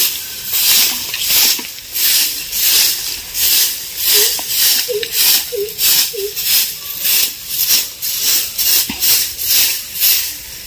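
A broom sweeping the ground: rhythmic, brisk swishing strokes, about two or three a second.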